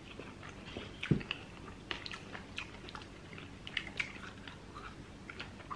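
Close-miked chewing and eating mouth sounds: irregular small clicks and bites, one louder about a second in.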